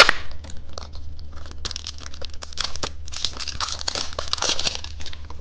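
Candy snack packaging crinkling and tearing as it is pulled open by hand, a dense crackle that thickens about three seconds in.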